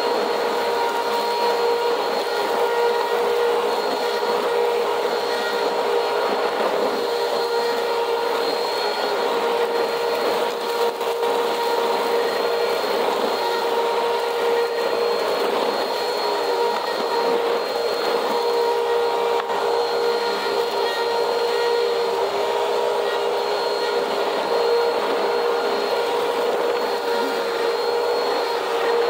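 Vacuum cleaner running steadily, its motor a constant whine over the rush of air.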